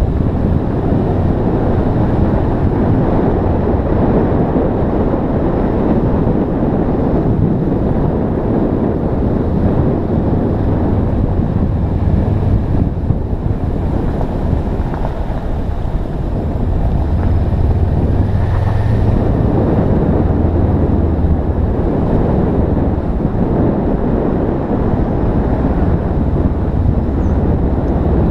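Wind rushing over the microphone of a camera on a moving motorcycle, with the motorcycle engine's low drone underneath, swelling a little past the middle.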